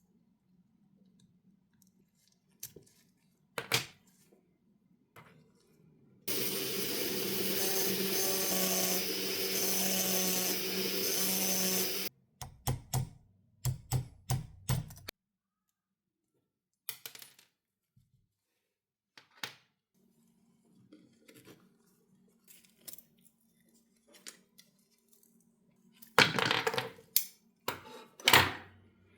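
Small metal lighter parts clicking and clinking as they are handled and set down, with a louder clatter near the end. About six seconds in, a power tool runs steadily for about six seconds and then cuts off suddenly.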